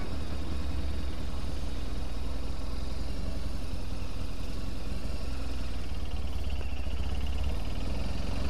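Motorcycle engine running steadily at low speed, heard from the rider's seat.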